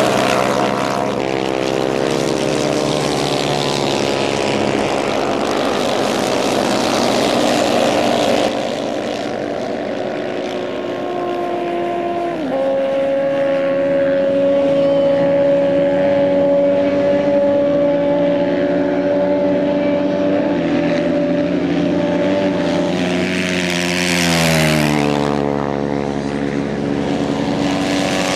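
Off-road racing motorcycles' engines revving hard, with the pitch climbing and falling through the gears. It is loudest when a bike passes close at the start, again near the end and once more as it finishes, with a steadier held engine note from more distant bikes in between.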